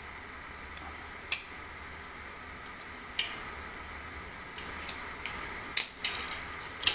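Sharp metallic clicks and clinks, about eight at uneven intervals, as a screwdriver and metal air rifle parts knock together while being worked by hand.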